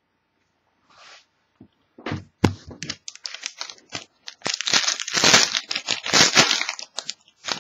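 A foil trading-card pack wrapper being torn open and crinkled by hand. The crackling starts about two seconds in and comes in dense bursts, loudest just past the middle.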